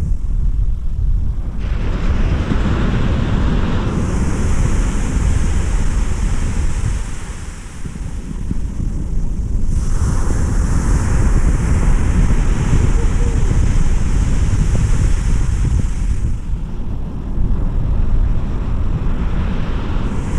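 Wind buffeting the microphone, a heavy low rumble, over the steady wash of breaking surf that swells and eases every few seconds.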